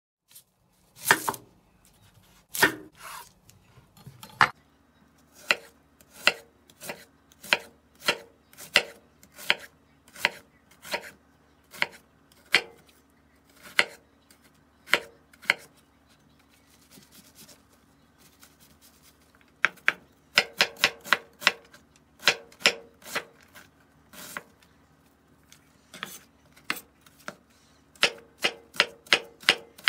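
Kitchen knife chopping an onion on a bamboo cutting board: sharp knocks of the blade striking the board, about one or two a second. There is a short lull about halfway, then quicker runs of strokes later on and near the end.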